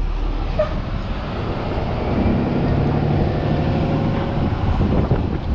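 Tow truck's engine and road noise heard from inside the cab, with a steady engine note coming up about two seconds in.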